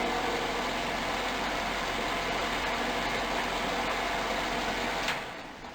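Lakewood 792 electric space heater running with its fan blowing steadily over a low hum. About five seconds in there is a click and the sound dies away as the heater switches off at the thermostat knob, the knob switching it cleanly after its contacts were cleaned.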